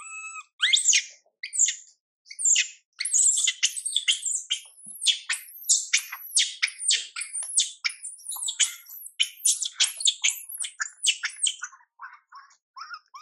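Baby macaque screaming in distress: a fast, unbroken string of shrill, high-pitched cries. Near the end it eases into a few shorter, softer calls.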